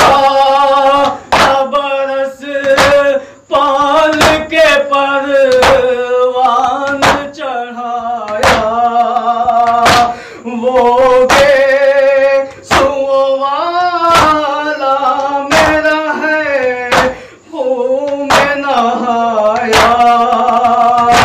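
A man reciting a Shia noha (lament) in a sung, held-note style, with sharp rhythmic hand strikes of matam (chest-beating) keeping time about once every two-thirds of a second.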